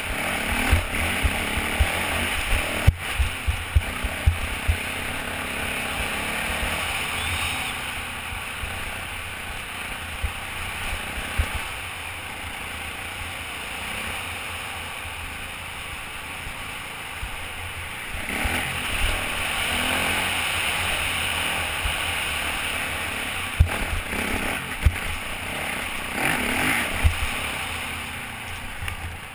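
Dirt bike engine running at speed over a rough dirt trail, heard from a helmet-mounted camera with wind buffeting the microphone and scattered sharp thuds from bumps. The engine and wind swell louder about two-thirds of the way through and again briefly near the end.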